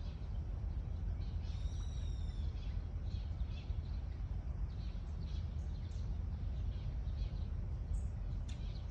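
Wild birds calling and chirping over a steady low rumble; about two seconds in comes one longer, arching call of several tones, and short chirps follow through the rest.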